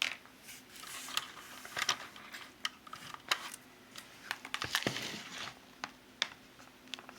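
Irregular light clicks, taps and short rustles of a plastic scale model car being handled and turned.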